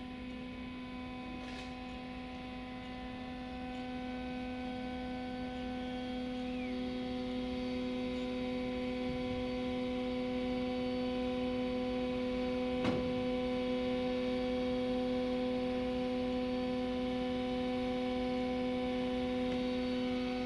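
Class 232 'Ludmilla' diesel locomotive standing with a steady hum in several tones, slowly growing louder; another tone joins about seven seconds in and a single click sounds about halfway through.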